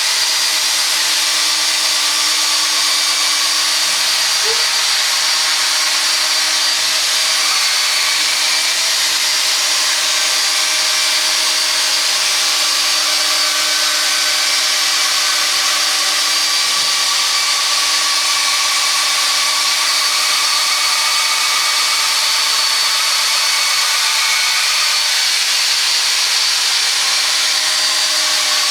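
Power drill spinning a 3-inch buffing pad with finishing polish against a plastic headlight lens: a steady high whine that runs without a break, its pitch wandering a little as the pressure on the pad changes.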